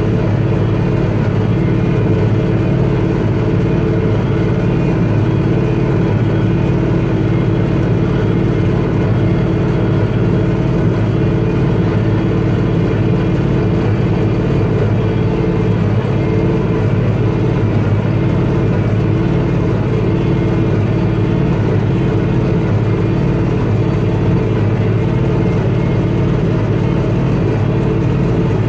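Bobcat CT335 compact tractor's diesel engine running steadily under load, driving a New Holland S66 square baler as it bales hay, the engine and baler machinery together in one continuous drone.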